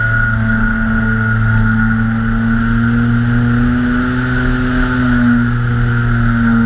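Twin electric motors of a TwinStar model plane, heard from its onboard camera: a steady, loud drone with a whine on top, its pitch rising slowly toward the end and easing back as the throttle changes, with wind rushing over the microphone.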